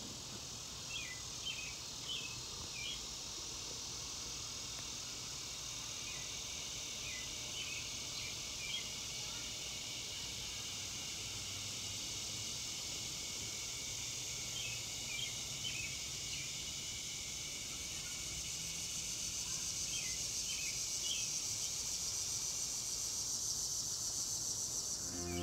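Steady, high, shrill chorus of insects, slowly swelling toward the end, with clusters of short high chirps every few seconds.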